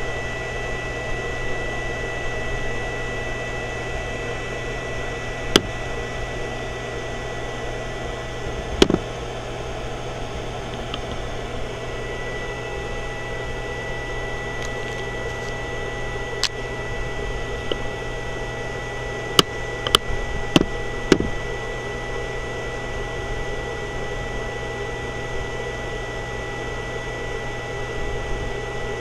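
Steady electrical hum and a thin, high, unchanging whine from a running HHO cell pulse circuit with its cooling fan. A handful of sharp clicks are scattered through, four of them close together about twenty seconds in.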